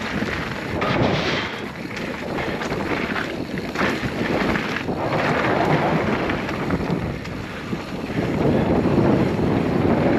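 Wind rushing over the microphone and the rumble of a mountain bike rolling fast over a rough dirt trail, with a few knocks and rattles from bumps.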